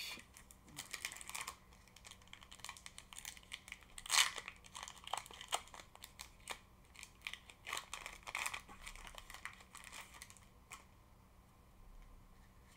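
Foil Pokémon booster pack wrapper being crinkled and torn open by hand: a run of irregular crackles and rustles, loudest about four seconds in, then softer rustling as the cards are handled.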